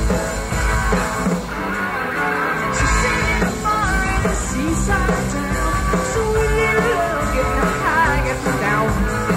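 Live rock band playing loudly: a woman singing lead into a microphone over electric guitar, bass and drums.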